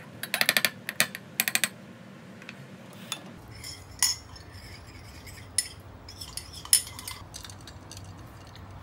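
A wooden spoon knocking and scraping against a glass tumbler as tapioca pearls are scooped in, a quick run of clinks in the first two seconds. After that come a few separate sharp clinks of glass, with ice in the drink.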